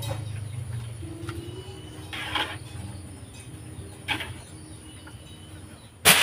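Metal ladle stirring and scooping genjer in a wok of boiling water, with a few short scrapes and splashes and one sharp clack of metal near the end. A low hum fades away in the first second.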